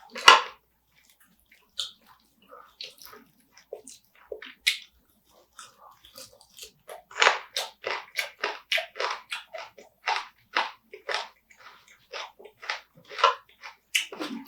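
Close-up chewing and crunching of spicy marinated raw crab with green chili peppers. There is a sharp crunch right at the start, then rapid crunching chews at about four a second through the middle.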